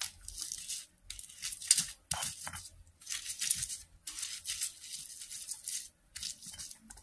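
A stone pestle (ulekan) grinding chilies, tomatoes and salt against a flat stone mortar (cobek) for sambal. It makes a gritty, grating scrape in seven strokes, each just under a second long, with short pauses between them.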